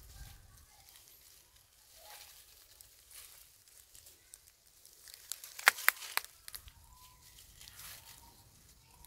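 Dry leaf litter crackling and rustling as a baby monkey moves through it, with a short burst of loud, sharp crackles a little past the middle.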